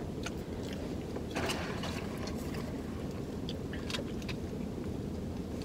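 Steady low rumble of a car idling, heard inside its cabin, with scattered small clicks and rustles of eating and of handling food wrappers and a drink cup.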